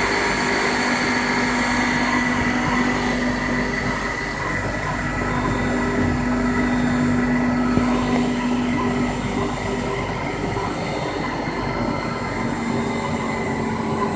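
Homemade disc grinder's electric motor, driven by a frequency inverter, running at a steady speed with a steady high whine over a rushing hum.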